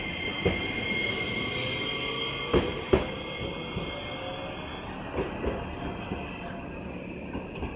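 Iyotetsu 5000 series low-floor tram moving away around a curve, its wheels squealing in a steady high tone that fades out about halfway through. Its wheels knock several times over rail joints and points, the two loudest knocks coming close together about three seconds in.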